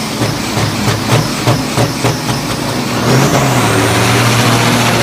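Semi truck's turbocharged diesel engine running with an irregular popping rhythm, then about three seconds in it revs up and holds loud, with a turbo whistle rising in pitch.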